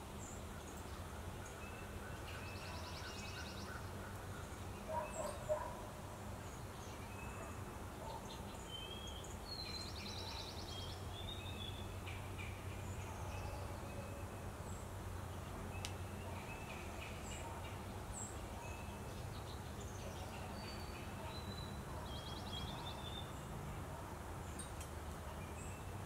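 Backyard songbirds calling: scattered chirps and call notes, with a fast trill heard three times, over a steady low rumble. Three short, lower, louder sounds come about five seconds in.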